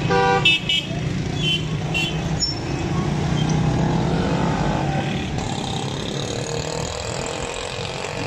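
Street traffic at a busy intersection: motorcycles, auto-rickshaws and cars running past in a steady mix of engine and road noise. There are a few short horn beeps in the first two seconds.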